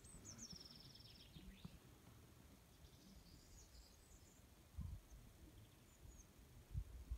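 Near silence, with faint high bird chirps, a low rumble, and a soft thump about five seconds in.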